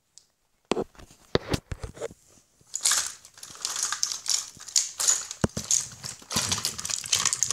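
Handling noise from a handheld phone being moved about: a few sharp knocks in the first two seconds, then continuous rustling and scraping with clicks against the microphone.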